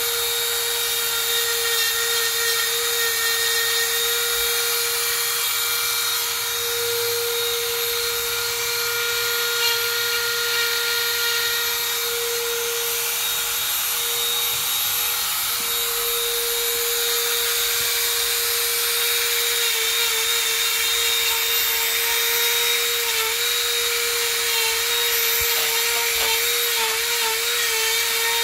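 Dremel rotary tool running through its flex shaft, the burr grinding into wood: a steady high-pitched motor whine with a grinding hiss. The whine wavers a little in the last third as the burr bites.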